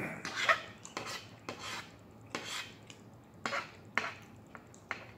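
A metal fork scraping and clinking on a plate as it digs into and cuts a fried pork chop, about ten short scrapes at an uneven pace.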